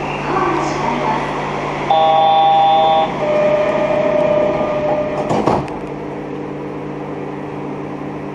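Door-closing warning on a Yurikamome train stopped at a station: a chord of electronic chime tones for about a second, then a single steady electronic tone for about two seconds. A sharp thud follows about halfway through as the doors shut, then the train's steady electrical hum while it stands.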